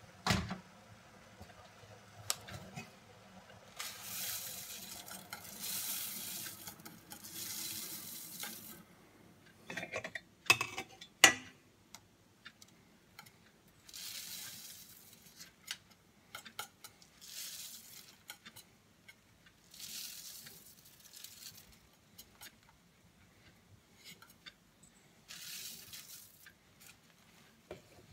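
A wire whisk swishing through water and oat flakes in a stainless steel saucepan, in spells of a second to several seconds, as oat porridge is mixed. Partway through, oat flakes are poured in from a plastic box, and a few sharp metal clanks come about ten to eleven seconds in.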